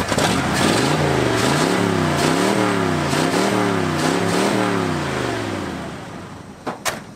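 Ford 460 V8 of a 1979 F-150 revved up and down about five times in a row, then letting the revs fall away and die down. Two sharp clicks near the end.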